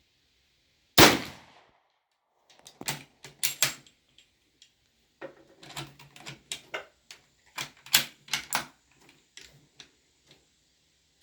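A single shot from a bolt-action Lee Enfield No.1 Mk III rifle rechambered to .45 ACP, about a second in, then a long run of sharp metallic clacks as the bolt is worked to extract the spent case and feed the next round.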